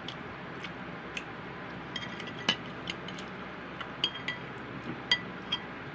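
A metal spoon clinking against a plate about a dozen times at an irregular pace while food is scooped up, with two louder clinks about two and a half seconds in and just after five seconds.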